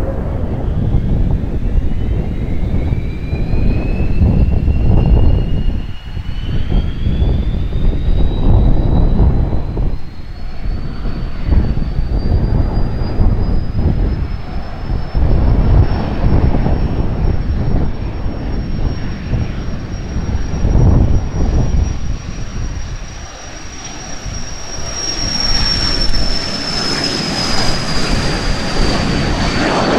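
Strong wind buffeting the microphone, over the whine of a Cessna Citation M2's twin turbofans climbing steadily in pitch as the jet spools up for takeoff. Near the end the jet noise grows louder and brighter, and the whine drops slightly in pitch as the aircraft rolls past on its takeoff run.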